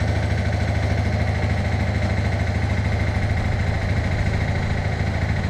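Bobcat M371 skid steer's diesel engine running steadily, with an even low hum and no revving.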